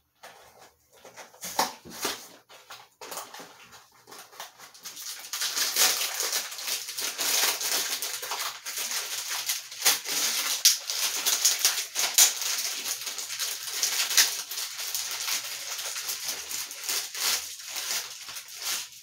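A cardboard cookie box being opened with a few scattered knocks and taps, then from about five seconds in a thin plastic cookie wrapper crinkling and rustling continuously as it is torn open and handled.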